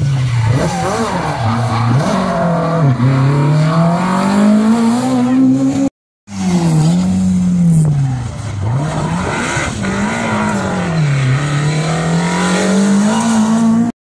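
Rally car engines at high revs, the pitch repeatedly dipping and climbing again as the drivers lift off, brake and change gear. The sound cuts out abruptly about six seconds in and again near the end, each time picking up with another car's engine.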